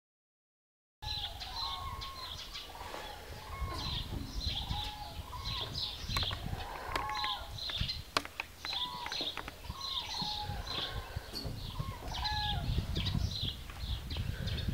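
Animal calls: many short, high chirps and squeaks repeating over a low rumble. The sound starts about a second in.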